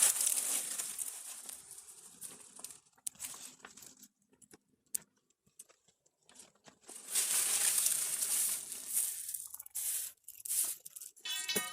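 Dry kindling and brush rustling and crackling in bursts, with scattered sharp snaps, as a wood-fired bread oven is being readied.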